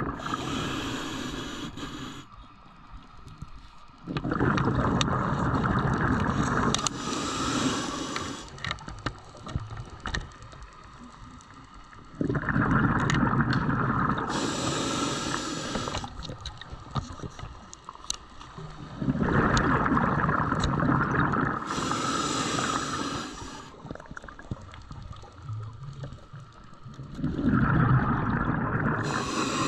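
A diver breathing underwater through a scuba regulator, four breaths about every seven seconds. Each breath is a rumble of exhaled bubbles and a high hiss of air, with scattered small clicks in between.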